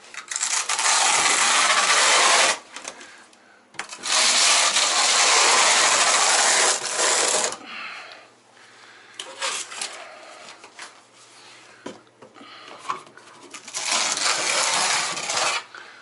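Steel notched trowel scraping large-format tile mortar across a wall in three long, loud passes, with shorter, quieter scrapes between them.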